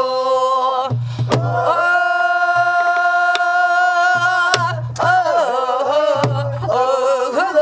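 A woman singing in the Namdo folk-song style, holding one long note for several seconds and then bending it with a wide vibrato. A buk barrel drum accompanies her, with sharp stick clicks and low thumps from the drumhead.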